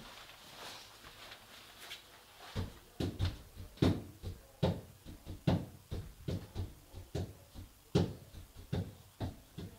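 A run of irregular knocks and thumps, about two or three a second, starting a couple of seconds in; before them only faint tapping.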